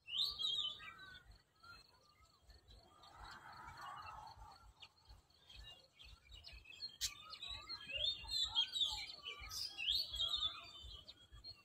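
Several small birds chirping and calling in short, high notes that bend up and down in pitch. The calls are loudest right at the start and again in a busy stretch about seven to ten seconds in.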